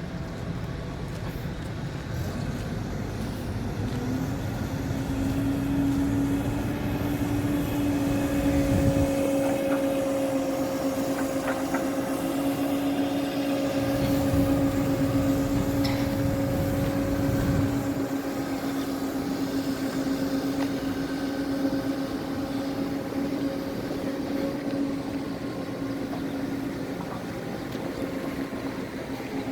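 Diesel engine of a CAT 307 amphibious excavator running. A steady hum sets in about four seconds in, and a heavier low rumble comes and goes beneath it.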